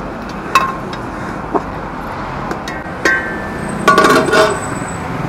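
A metal ladle clinks against a hammered metal cooking pot a few times as chunks of mutton are stirred. About four seconds in, the pot's metal plate-lid is set on with a ringing clang.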